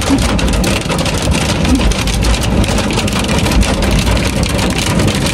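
Heavy rain pelting a car's roof and windows, heard from inside the cabin: a loud, dense patter of drops over a low rumble.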